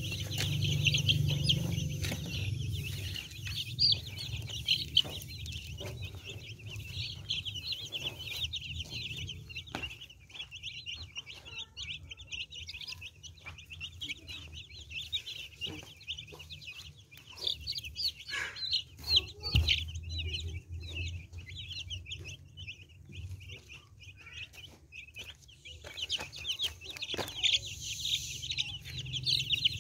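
A flock of young domestic chicks peeping constantly, many short high-pitched calls overlapping, with a low rumble underneath that is strongest in the first few seconds.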